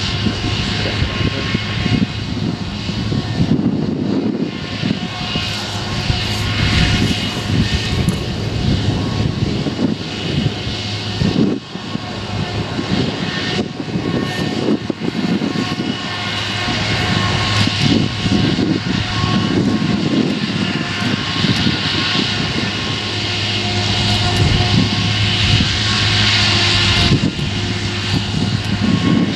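Claas Jaguar forage harvester running steadily under load while chopping rye, its engine and chopping drum giving a continuous drone with steady high-pitched tones, mixed with the JCB Fastrac tractor driving alongside with its trailer.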